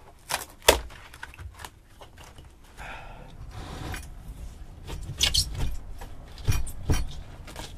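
A hand scraper scraping and chipping at water-rotted plywood, with sharp knocks and clatter of tools and loose debris. The knocks come singly at irregular intervals, the loudest about a second in, with a stretch of scraping around three to four seconds.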